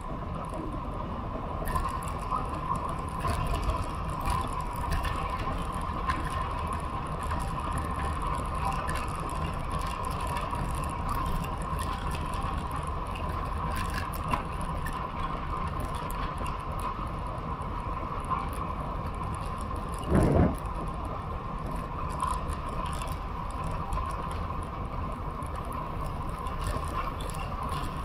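Road bicycle rolling along asphalt, its tyre and road noise mixed with wind rushing over a bike-mounted action camera's microphone. A brief louder bump about twenty seconds in.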